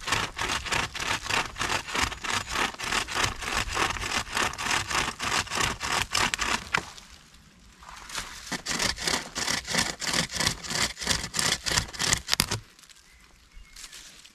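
Hand chainsaw chain, strung taut on a bent sapling as a bow saw, cutting through a log: quick rasping back-and-forth strokes, about four a second, with a short break about seven seconds in, stopping about twelve and a half seconds in.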